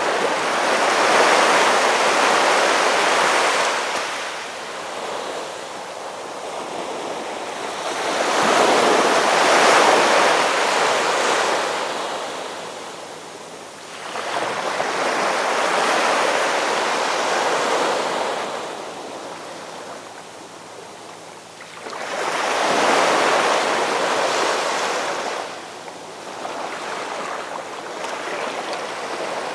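Ocean waves surging in and washing back, rising and falling in four slow swells about six to eight seconds apart.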